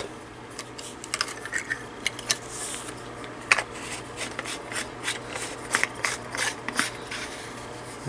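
A plastic telephone handset and its metal and plastic parts being handled: scattered small clicks, taps and rubbing.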